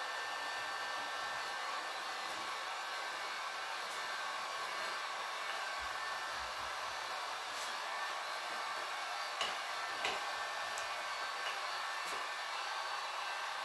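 Electric heat gun blowing steadily, heating the joint and corner of flexible stone sheets so they soften, lie flat and fuse into one piece. A couple of faint light knocks come about two-thirds of the way through.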